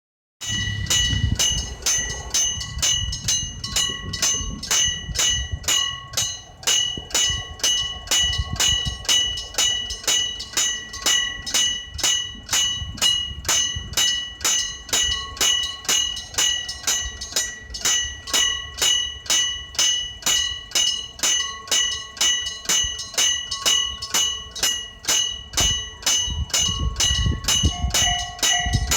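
Electric bell of a railway level-crossing warning, its hammer striking the gong over and over at a steady, even pace with a bright metallic ring. A low rumble comes in underneath near the start and again near the end.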